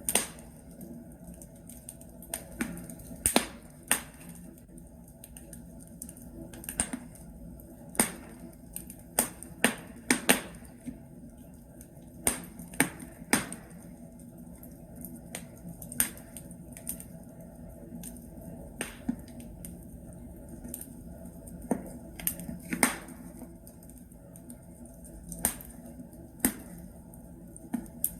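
Wood fire crackling in a fireplace: irregular sharp pops and snaps from burning logs, a few every second or two, over a low steady hiss of the flames.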